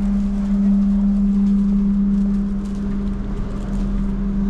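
Steady low hum of a passenger train carriage's on-board equipment, heard from inside the carriage while the train stands at the platform, with no rolling or track noise.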